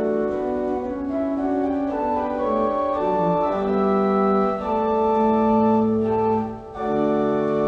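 Church organ playing held chords that change every second or so; the music dips briefly near the end and comes back on a full sustained chord.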